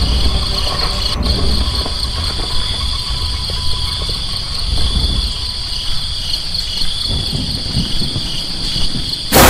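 Crickets chirring steadily over a low rumble, as in a night ambience. A sudden loud boom breaks in right at the end.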